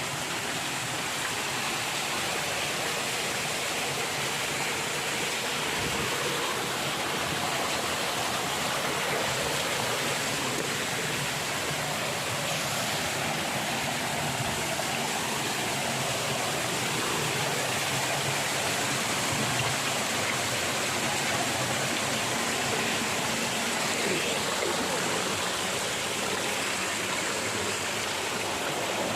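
Stream water rushing, a steady unbroken noise.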